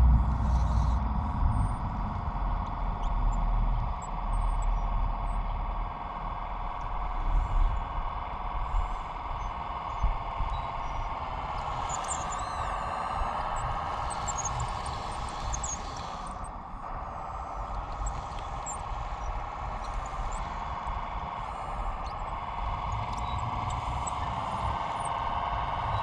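Radio-controlled model Caterpillar bulldozer's electric motors and gearing whining steadily as it pushes soil with its blade, the pitch shifting slightly midway as the load changes. A low rumble sits under it in the first few seconds.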